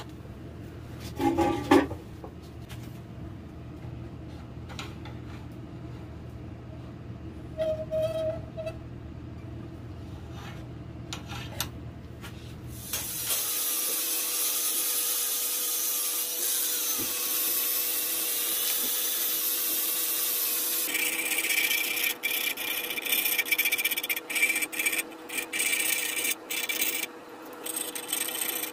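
A low steady hum for the first half. Then a hand-held rotary tool fitted with a disc grinds into the rim of a maple burl vase, a loud steady high-pitched grinding that turns choppier and more uneven in the later part.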